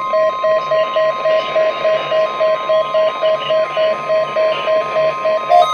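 NOAA Weather Radio warning alarm, a long steady 1050 Hz tone, sounding over an alert beeping about three times a second. Near the end the steady tone cuts off and the beeping turns slightly higher and louder. The tone announces a warning broadcast, here a snow squall warning.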